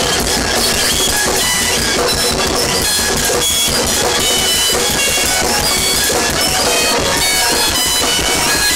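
A noise-rock duo playing live at full volume: rapid, pounding drums under heavily distorted bass guitar. Short high-pitched notes jump about in pitch over the top.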